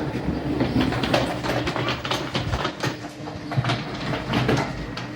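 Train sounds: a steady low hum with many irregular clicks and knocks.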